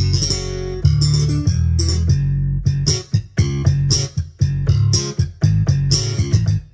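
Yamaha PSR-S970 arranger keyboard playing one of its bass-guitar voices: a run of low plucked bass notes with sharp attacks, some held and some short. It is a sampled electric bass that, by the player's own judgement, has hardly any slap to it.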